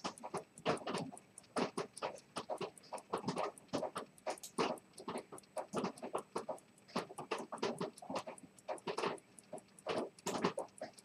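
Zenith 15-jewel pocket watch movement ticking rapidly, about five ticks a second, with louder irregular clicks and scratchy knocks over the ticking.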